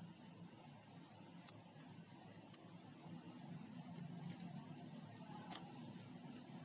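Faint scattered clicks and ticks as small phone display and touch-panel parts are handled, over a low steady hum.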